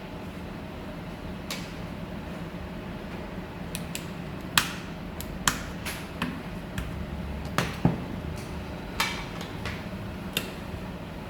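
Small repair tools clicking and tapping against an iPhone 7, about half a dozen sharp clicks scattered over the second half, over a steady background hum.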